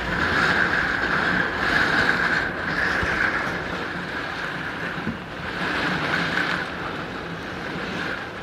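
Strong gusty wind driving heavy rain in a severe thunderstorm: a loud, steady rush that swells and eases with each gust, with wind buffeting the microphone.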